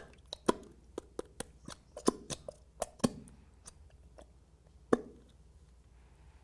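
Plastic bottle of clear glue squeezed by hand over a bowl to empty it, giving irregular sharp clicks and crackles, a few of them louder.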